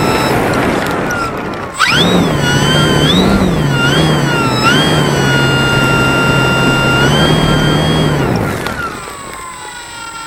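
Electric motor and propeller of a Durafly Tundra RC plane whining. It is throttled up sharply about two seconds in, wavers up and down, holds steady, then winds down and falls away about eight seconds in. Wind noise runs underneath throughout.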